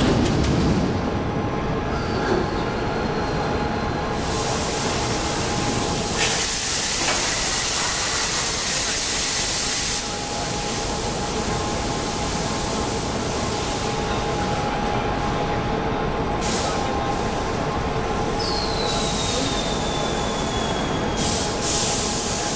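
A crankshaft roll forging line running, with a steady machine hum and clatter throughout. A loud hiss comes in about six seconds in and stops about four seconds later, and a high whine falls in pitch twice, near the start and near the end.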